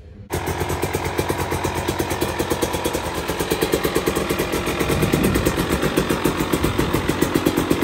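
2019 KTM EXC 300 two-stroke single-cylinder enduro engine idling on its stand, with a fast, even pulsing beat.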